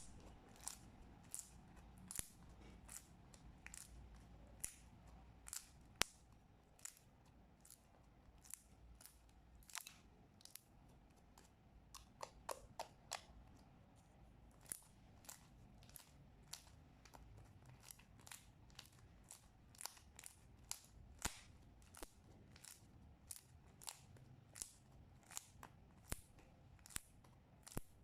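Thick white glue slime being squeezed and folded by hand, making sharp, irregular clicks and pops about one or two a second as air pockets in it burst.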